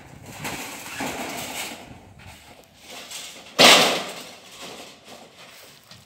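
A single loud, sudden crash about three and a half seconds in, dying away within half a second: corrugated sheet-metal roofing struck as a truck cab squeezes under it.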